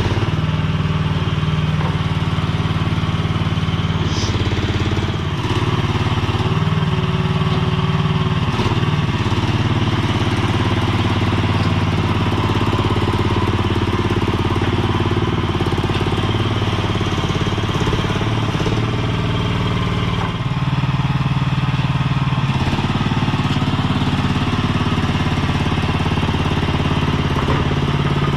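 Mini skid steer's small engine running steadily, its pitch rising and dropping a few times as it works.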